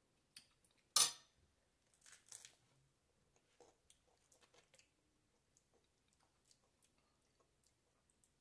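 A crunchy bite into a hard-shell taco about a second in, a smaller crackle a second later, then faint crunchy chewing with scattered small clicks.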